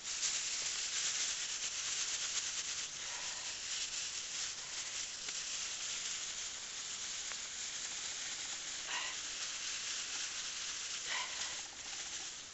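Clear plastic bag holding soapy water and a piece of clothing being shaken and kneaded by hand to wash it: a steady crinkling, swishing rustle of the plastic with the water moving inside, starting suddenly and easing off near the end.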